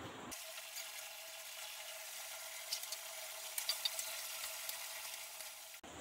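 Masala paste of ginger-garlic, chili paste and ground spices, loosened with a splash of water, bubbling and sizzling in a non-stick kadai while it is braised down. The sound is a soft, steady crackle with a few sharper pops near the middle, and it cuts off suddenly just before the end.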